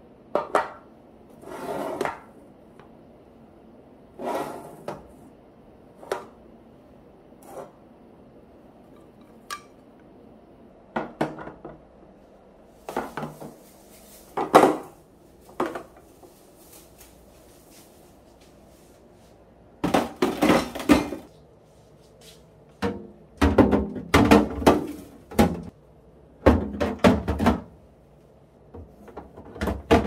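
Vakuen plastic vacuum storage containers clacking and knocking on a countertop as they are set down and stacked, in short bursts of clatter with pauses between. The clatter is busiest in the second half.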